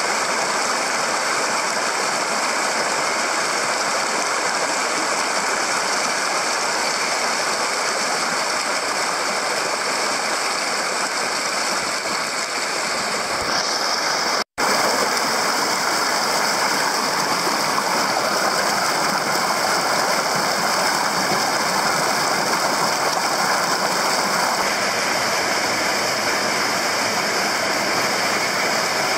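Mountain headwater stream rushing over boulders and small cascades: a steady, even rushing noise. It drops out for a split second about halfway through, then goes on.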